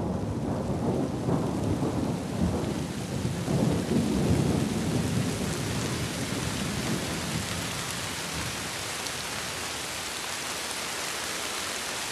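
Thunderstorm: deep rolling thunder over heavy rain, the thunder dying away after about five seconds and leaving a steady hiss of downpour.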